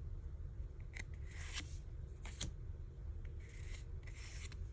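Pokémon trading cards being slid across one another in the hand as a pack is looked through: several soft, brief brushing rustles.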